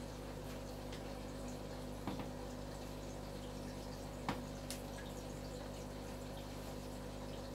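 Aquarium equipment running: a steady low hum with faint water trickling and a few small ticks, the sharpest about four seconds in.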